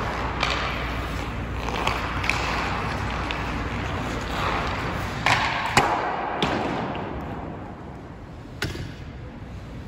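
Hockey skates scraping and carving across rink ice as a player skates in with a puck. Sharp clacks of the stick on the puck cut through it; the loudest crack, about six seconds in, is the shot. The skating noise fades after about seven seconds, and there is one more knock near the end.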